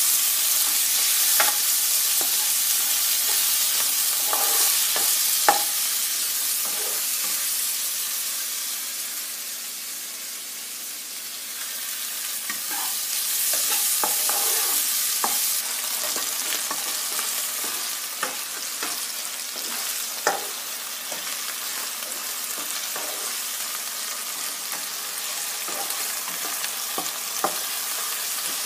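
Diced onion and tomato sizzling in oil in a nonstick wok, stirred with a spatula that scrapes and taps against the pan. The sizzle is louder early on, dies down around ten seconds in, then picks up again, with a few sharper taps along the way.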